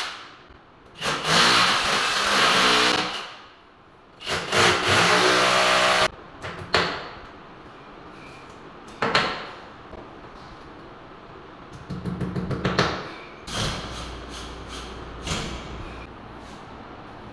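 Electric drill boring into the wall overhead, in two runs of about two seconds each that wind down in between. Then a few sharp knocks of a hammer tapping at the wall, with a quick run of taps a little before the end.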